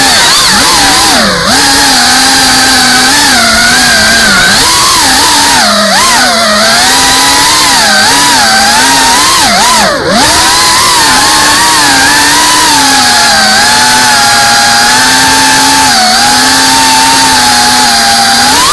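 FPV racing quadcopter's brushless motors and propellers whining loudly, the pitch rising and falling with the throttle. It drops briefly about a second and a half in and again about halfway through, where the throttle is chopped.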